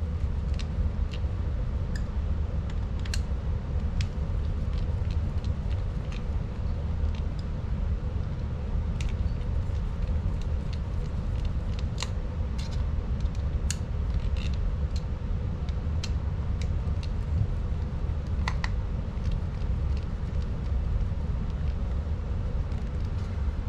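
Scattered light clicks and ticks of a hand screwdriver and small parts as the screws of an RC truck's differential cover are threaded in by hand, over a steady low rumble.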